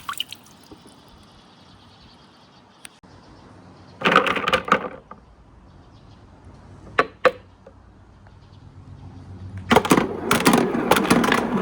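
Marbles rolling down a multi-level slope marble run, with a burst of clattering about four seconds in, two sharp clicks around seven seconds, and dense clattering from about ten seconds on as many marbles rattle down the slopes.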